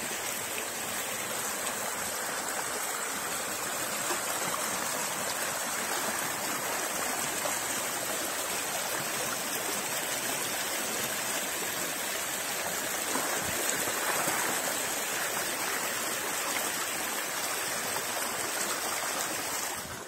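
Shallow, rocky creek flowing over stones: a steady rush of running water.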